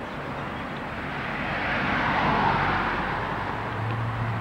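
A car passing on the highway: tyre and engine noise swells to its loudest a little after halfway, then eases off. A low steady engine hum comes in near the end.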